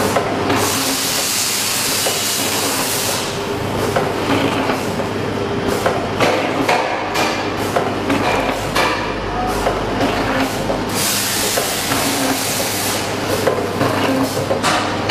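Liquid/jelly packaging machine running: a steady mechanical clatter of knocks and clicks, with two bursts of compressed-air hiss, one near the start and one about three-quarters of the way through.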